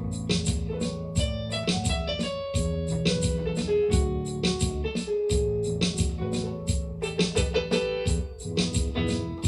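Electronic keyboard playing a melody over a steady beat of drum strikes and a bass line.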